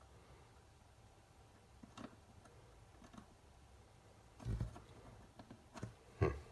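A few light clicks and knocks over faint room tone as tools and small parts are handled during soldering at the workbench. The loudest is a dull knock about four and a half seconds in, followed by two sharper clicks near the end.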